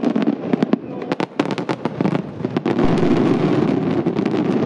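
Fireworks bursting in a barrage: a quick string of sharp bangs and pops that thickens into a dense, continuous crackle about two seconds in.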